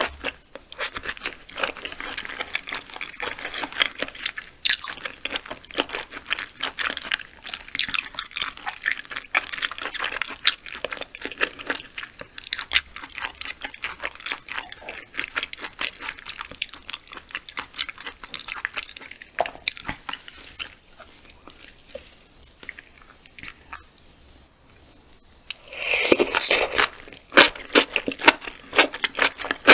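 Close-miked wet chewing of raw yellowtail sashimi, a dense run of small, irregular mouth clicks and smacks. It falls quiet briefly a little before the end, then picks up louder again.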